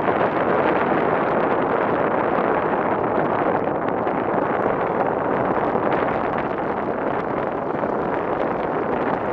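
Waterfall: a steady, unbroken rush of falling and churning river water.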